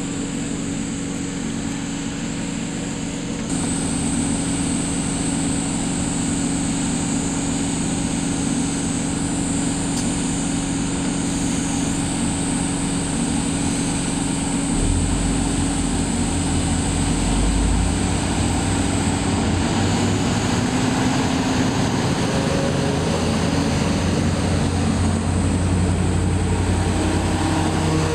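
Diesel railcar engine running with a steady drone, stepping up in level about three and a half seconds in, with a deeper rumble building from about fifteen seconds.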